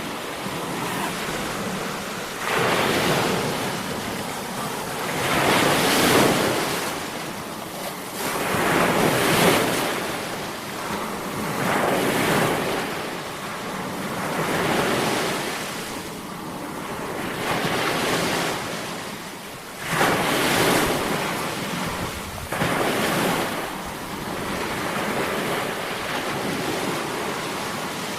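Sea waves breaking on the shore: a steady rush of surf that swells every three seconds or so as each wave crashes, with wind noise on the microphone.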